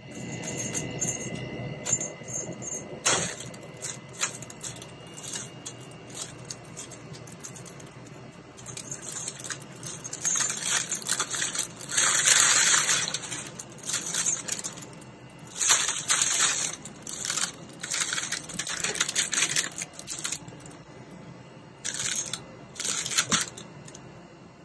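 Kittens at play with a stuffed toy mouse and a fabric cat tunnel: irregular bursts of crinkly rustling with small clicks and taps, the loudest burst about halfway through and shorter ones later.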